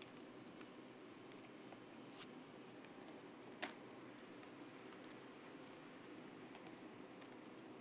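Faint clicks of a flathead screwdriver working the plastic retaining tabs of a bumper trim piece, with one sharper plastic click about three and a half seconds in, over low room tone.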